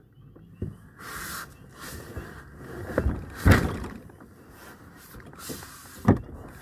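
Knocks and scuffs of a person shifting around in a canoe, with rustling of clothing between them; the loudest thump comes about three and a half seconds in, with another sharp knock near the end.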